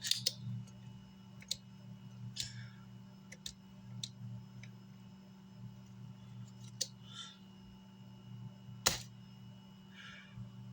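Scattered sharp clicks and a few short scraping noises from small hand tools being worked on an amplifier's circuit board, over a steady low electrical hum. The loudest click comes near the end.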